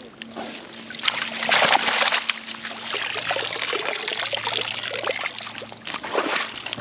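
Water splashing and trickling, loudest for about a second starting a second in, then running on more quietly.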